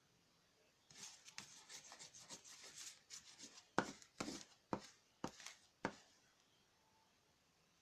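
Slime of body wash, shaving cream and salt being mixed and scraped on a paper plate: a run of quick rubbing, scraping strokes starting about a second in, with several sharper clicks near the end.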